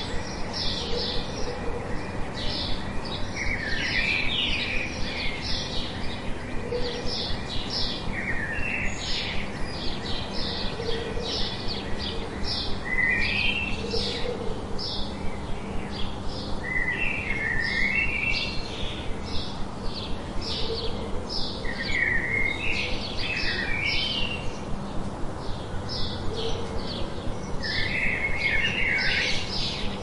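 Several birds singing: a dense run of short, high chirps throughout, a twittering phrase every few seconds, and a faint lower call now and then, over a steady background hiss.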